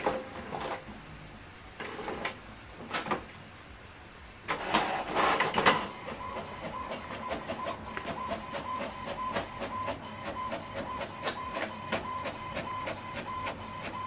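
HP Smart Tank 7605 inkjet printer printing a page: a few separate clicks as it starts up, a louder burst of mechanical noise about four and a half seconds in, then a steady whine with rapid, regular ticks as the page is printed and fed out.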